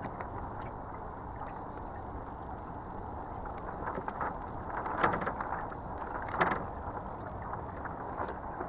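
Small sailing dinghy on the water: a steady low wash with light ticks, and two sharp knocks about five and six and a half seconds in.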